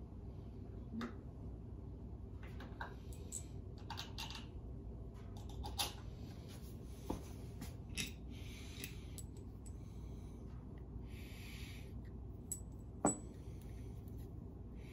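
Small metal parts and bolts clinking and tapping on a workbench as they are handled, with several sharp clicks, the loudest about thirteen seconds in, and some scraping and rustling between them, over a steady low hum.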